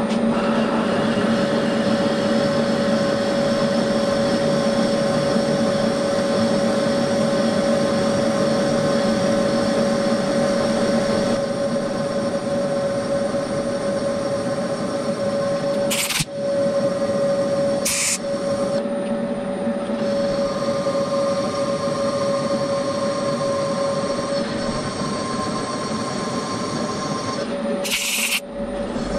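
Bridgeport milling machine spindle running steadily with a whine while it reams a hole in a cast cylinder cover. Short hisses of a compressed-air blow gun cut in twice around the middle and once near the end.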